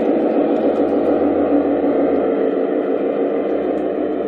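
G-scale model diesel locomotive running slowly along the track with a steady diesel-engine rumble, easing off slightly near the end as it comes to a stop.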